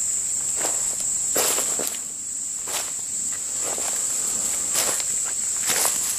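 Slow footsteps on the leaf-strewn ground of a creek bed, about one step a second, over a steady high-pitched drone of insects.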